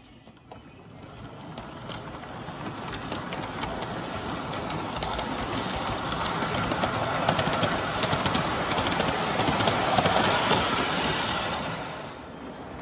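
O gauge model freight train rolling on tinplate three-rail track, its wheels rumbling with a rapid, uneven clicking over the rail joints. It builds up from about a second in, is loudest about ten seconds in, and drops off near the end.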